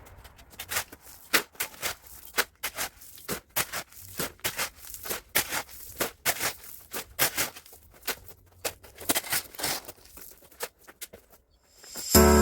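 A run of sharp, irregular clicks and snaps, a few each second, then music starts abruptly just before the end.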